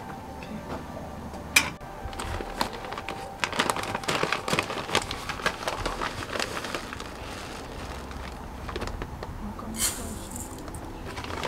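Plastic bag of maize rice rustling and crackling as it is opened and handled, after a single sharp click. About ten seconds in, dry maize rice pours from a cup into a bowl with a brief hiss.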